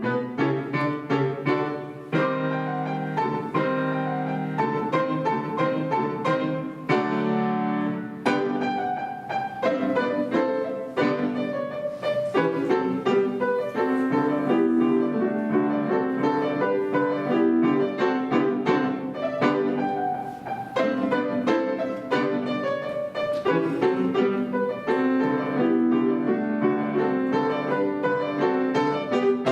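Piano duo, two pianists playing a lively piece together, with dense runs of quick notes.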